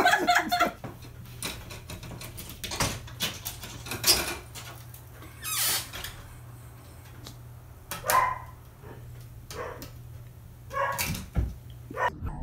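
An animal's short calls, several of them a second or two apart, over a steady low hum.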